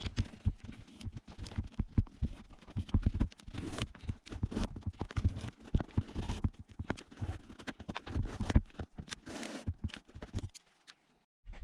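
Hands working the small plastic parts and lace of a spin-buckle lacing kit: irregular clicks, taps and rustling that stop about ten and a half seconds in.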